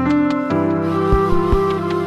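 Instrumental background music: sustained melodic notes over light percussive strikes.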